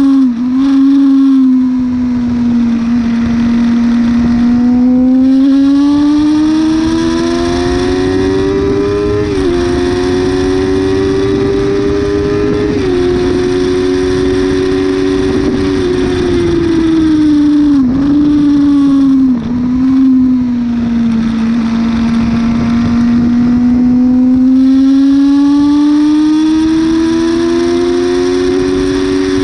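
Yamaha R6 sport bike's inline-four engine at high revs on track, heard from onboard with wind rush. It climbs in pitch with small drops at gear changes, dips sharply on downshifts near eighteen and nineteen seconds in, then pulls up through the revs again near the end.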